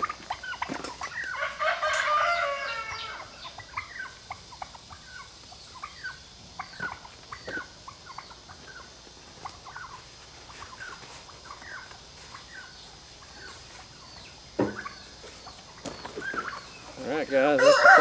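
A rooster crowing, with chickens clucking in short calls in between; a second crow starts near the end and ends on a long held note. A single sharp knock sounds about three-quarters of the way through.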